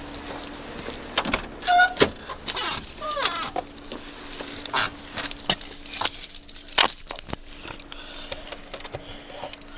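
Car keys jangling, with a run of sharp clicks and knocks and a couple of short squeaks about two and three seconds in.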